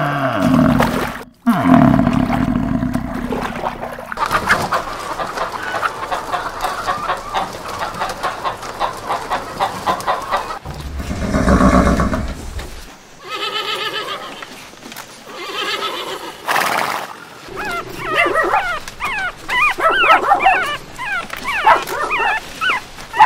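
A string of animal calls across several short clips, ending with a small dog's quick, high, wavering yips and whimpers over the last few seconds.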